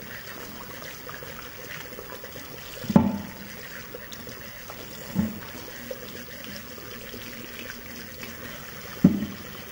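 Tap water running over chicken feet being washed by hand in a stainless steel sink. Three sharp knocks stand out, the loudest about three seconds in and another just before the end.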